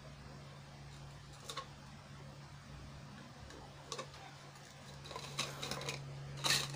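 Light clicks and taps from thin plastic cups being handled, about four spaced out, the sharpest near the end, over a steady low hum.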